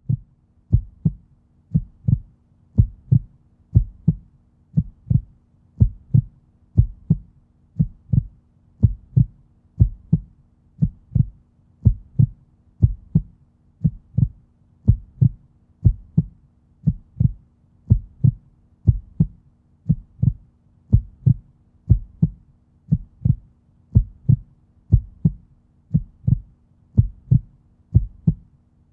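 Human heartbeat: steady paired low thumps (lub-dub), about one beat a second.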